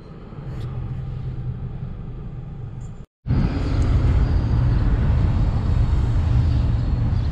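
Car engine running low and steady, heard from inside the cabin. About three seconds in it cuts off and gives way to a louder, steady low rumble.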